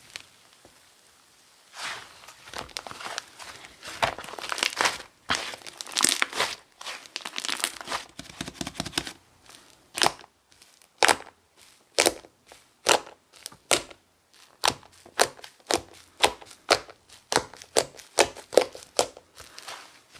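Sherbet-textured slime squeezed and worked by hand, crackling and crunching. From about halfway it settles into a regular run of sharp crackling pops, about two a second.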